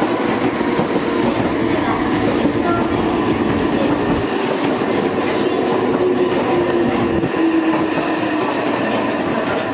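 Meitetsu 6000 series electric train pulling out of the station: the traction motors hum, rising slowly in pitch as it gathers speed, and the wheels click over the rail joints.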